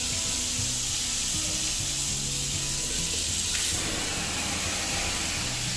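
Steady rush of running water, with background music of sustained low notes underneath.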